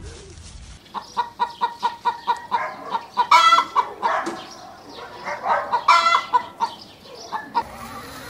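Brown hen clucking in a quick run of short notes, then giving two louder squawking cackles, about three and six seconds in.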